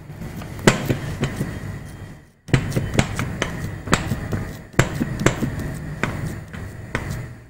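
Plastic spatula tapping and scraping on a metal pot lid as a thick potato-semolina mixture is pressed and spread flat: irregular knocks, one or two a second. The sound drops out briefly about two and a half seconds in.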